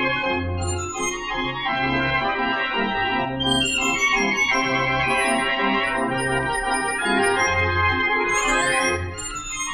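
The Gavioli barrel organ 'De Grote Gavioli' playing a tune: pipe melody over a regular pulse of bass notes, with a quick rising run of high notes near the end.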